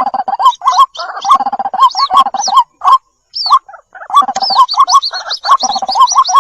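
White-breasted waterhen calling: a rapid string of short repeated notes, breaking off briefly about three seconds in, then resuming.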